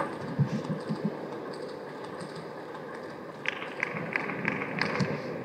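A table tennis ball bounced repeatedly before a serve: about six light, evenly spaced clicks, roughly three a second, in the second half. It opens with one sharp click and a few soft low thumps.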